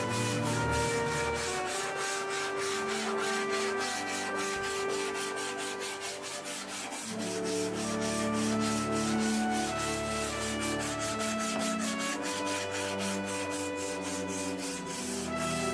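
Hand sanding of a car's bare-metal bodywork with a sanding block and abrasive paper: repeated rubbing strokes, under background music with a steady beat.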